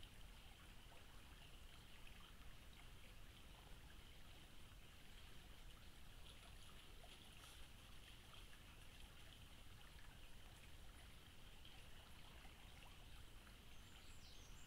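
Faint, steady flow of a river, with no distinct events.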